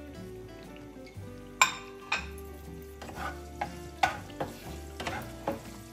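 Onion, dried red chillies and garlic frying in mustard oil for a tempering (bagar), sizzling steadily. A spoon stirs them and clinks against the pan about eight times, loudest about one and a half seconds in.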